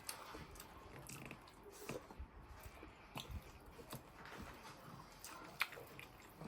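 A person chewing pork, with soft wet mouth clicks and one sharper click about five and a half seconds in.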